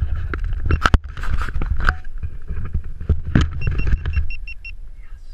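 Wind rumbling on the camera microphone, with rustling and knocks as the camera is handled and picked up. A little under four seconds in, about six quick two-tone electronic beeps sound over about a second.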